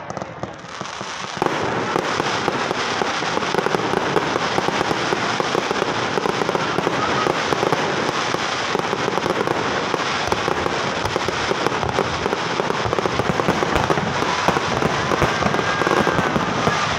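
Fireworks display: a dense, continuous rattle of rapid crackling pops that starts suddenly about a second and a half in.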